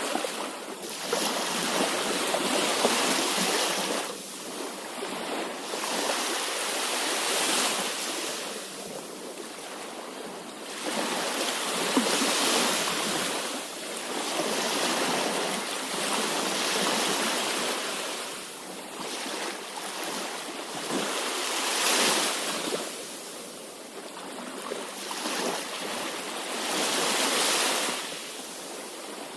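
Sea waves surging in and washing back, a rushing sound that swells and ebbs every few seconds.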